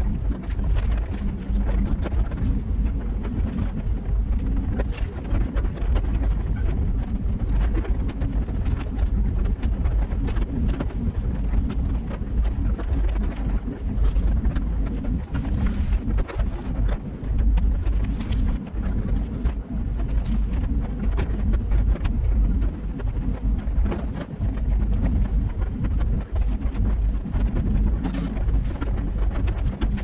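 LiuGong excavator's diesel engine and hydraulics running under load, heard from inside the cab as a steady low rumble. Occasional knocks and cracks come through as the arm works the brush and pine.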